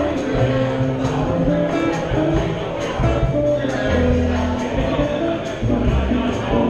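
Live jazz trio playing: an archtop electric guitar with upright bass and a drum kit, the cymbals tapping out a steady beat.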